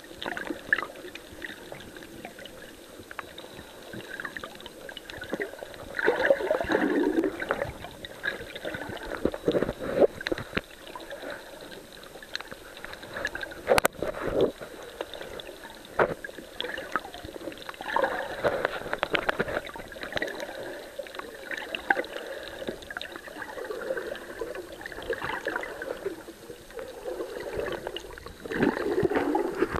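Muffled underwater sound from a camera held beneath the sea surface while swimming: irregular water swishing and gurgling that swells and fades, with scattered clicks and crackles, one sharp click about halfway through.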